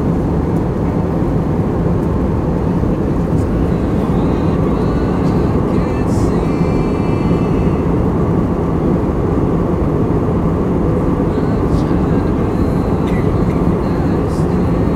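Steady drone of an airliner cabin in flight: engine and airflow noise, heavy and low, unchanging in level.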